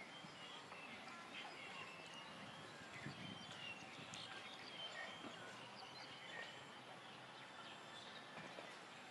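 Faint outdoor ambience with a few short, high chirps scattered through it.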